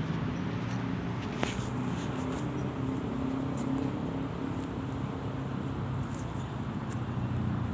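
Steady engine hum with outdoor background noise, and a single sharp click about a second and a half in.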